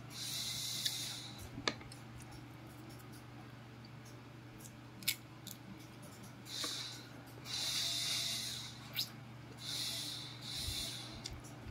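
Longan fruit being snapped off the stalks by hand and the thin, brittle rind cracked and peeled: a few sharp clicks and several short, hissy rustles.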